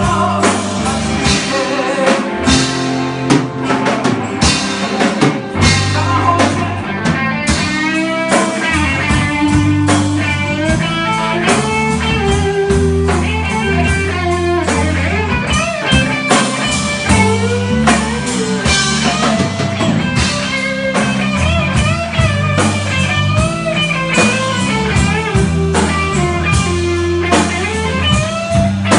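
Live rock band playing an instrumental passage without singing: drums, bass and acoustic guitar under an electric guitar lead line with bent, wavering notes.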